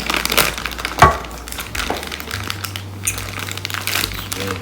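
Eating and food-handling noises close to the microphone: a run of small clicks and rustles with one sharp knock about a second in.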